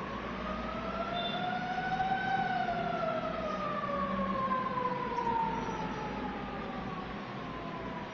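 A siren wailing: one slow rise in pitch for about two seconds, then a long slow fall, over a steady low hum.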